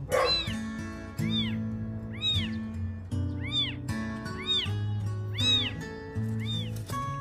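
A kitten meowing over and over, short high calls about once a second, over steady background music.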